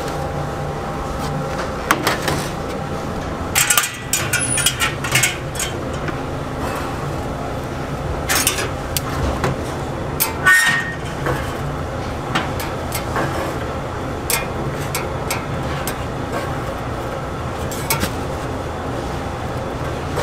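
Small metal baking pans clinking and knocking as steel tongs lift them and set them on the racks of a barrel oven: a scattering of sharp clanks, the busiest run a few seconds in, over a steady background hum.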